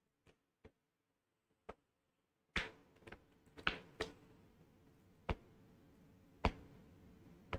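Computer keyboard keystrokes: single clicks at an irregular pace, several of them sharper, typical of typing a short shell command and pressing keys one at a time. A faint hiss comes up about two and a half seconds in.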